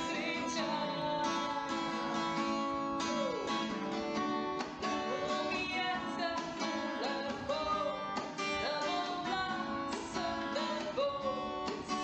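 Background music led by a strummed and plucked acoustic guitar, at a steady level.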